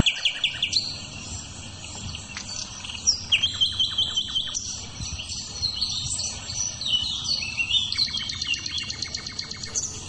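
A chorus of small birds chirping and whistling, many calls overlapping, with fast trills of rapidly repeated notes.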